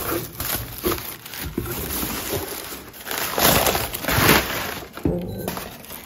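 Cardboard box being opened and honeycomb kraft-paper packing crinkling and rustling as its contents are unwrapped. The crinkling is loudest a little past the middle.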